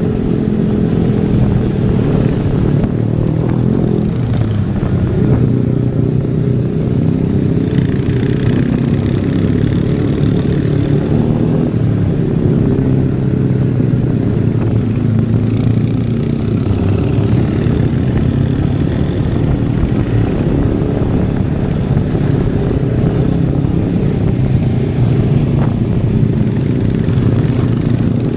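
Royal Enfield Hunter 350's single-cylinder engine and exhaust running steadily under way, the engine speed shifting a little now and then with the throttle.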